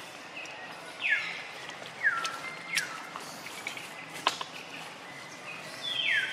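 Forest birds calling: four loud, sharply falling whistles over steady outdoor ambience, with a single sharp click about two-thirds of the way through.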